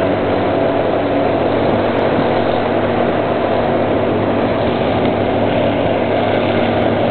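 A vehicle engine running steadily at a constant speed, a continuous low drone that does not change in pitch or loudness.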